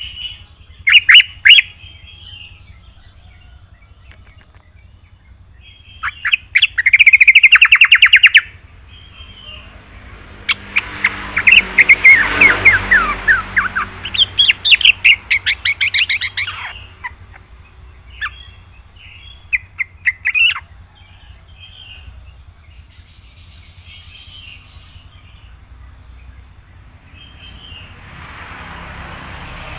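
Yellow-vented bulbul (trucukan) singing in loud bursts of rapid, chattering repeated notes, several phrases broken by short pauses, the longest running about six seconds near the middle.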